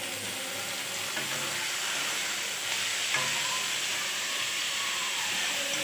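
Onions, garlic and spice paste frying in hot mustard oil in a kadai, a steady sizzle.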